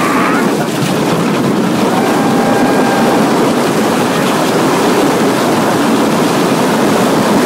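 Loud, steady rush of wind on the microphone and water spray as a flat-bottom boat is towed at speed across a lake.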